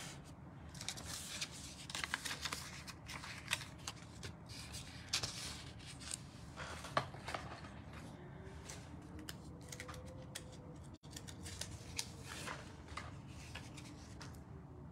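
Small, scattered rustles and clicks of paper and tape being handled on a craft desk, with a few sharper snips among them.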